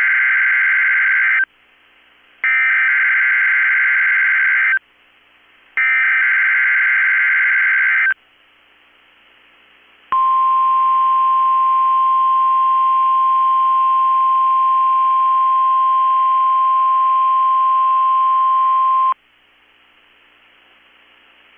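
NOAA Weather Radio emergency alert signal for a required weekly test. It opens with the end of the first of three SAME digital header bursts, each a harsh data warble about two seconds long with a gap of about a second between them. After a pause of about two seconds comes the steady 1050 Hz warning alarm tone, held for about nine seconds, which sets off weather alert radios.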